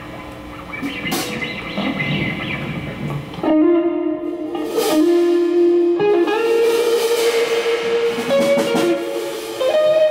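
Live blues band starting a song: electric guitar plays a slow blues lead line of long held notes that step and bend, coming in loud about three and a half seconds in after quieter, looser playing.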